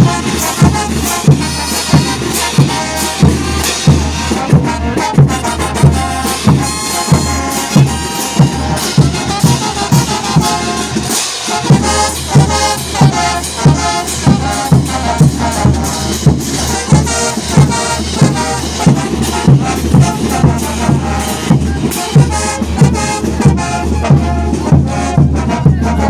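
Bolivian brass band playing: trumpets and trombones over a steady bass drum beat of about two strokes a second, the drum dropping out briefly about eleven seconds in.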